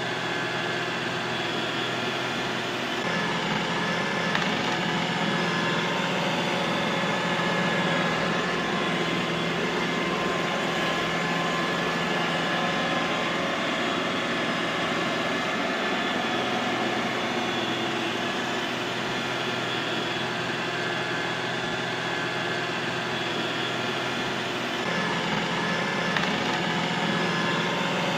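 Robot vacuum cleaner running steadily, its motor whirring with a constant whine. The low hum shifts slightly about three seconds in and shifts back near the end.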